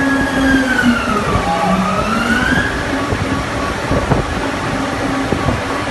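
Hot ring rolling machine running under load with a steady mechanical drone, a whining tone that dips in pitch and rises again during the first three seconds, and a few sharp knocks around four seconds in.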